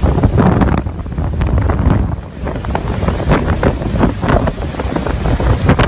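Hurricane-force wind blowing in gusts and buffeting the microphone, a loud low rumble with irregular thumps of wind hitting the mic.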